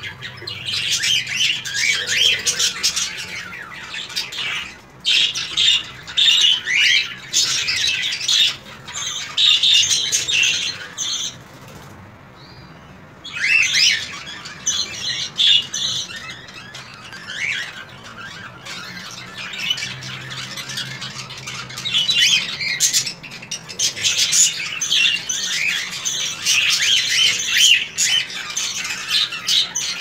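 Several cockatiels calling over one another with rapid chirps and squawks, with a short lull about twelve seconds in.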